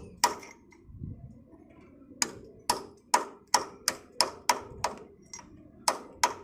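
Hammer striking metal, each blow ringing: a single blow, a short pause, then about ten quick taps at two to three a second, typical of knocking apart or driving parts while changing a rotavator's oil seal.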